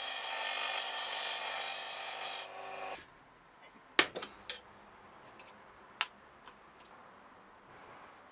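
Bench grinder running with a metal tube held against the wheel: a loud hissing grind over the motor's steady hum. The grinding stops about two and a half seconds in and the hum cuts off soon after, followed by a few sharp clicks and knocks.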